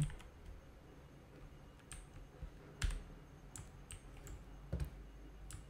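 A few scattered keystrokes on a computer keyboard: single clicks about a second apart with faint room tone between them, the sharpest about three seconds in and again near five seconds.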